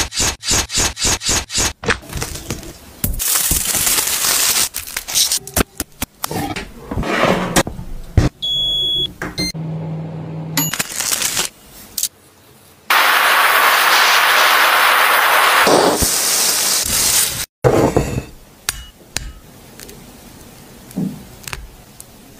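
Close-up food-preparation sounds: a knife cutting into a lemon in a quick run of sharp clicks, then scattered scrapes and crackles, and a steady loud hiss lasting about three seconds midway.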